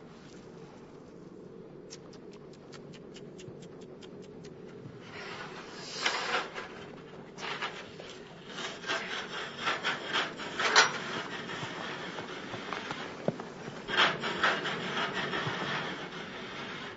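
Metal ladder being hauled and dragged over packed snow: irregular scraping and knocking, louder in the second half, after a run of quick, even clicks a couple of seconds in.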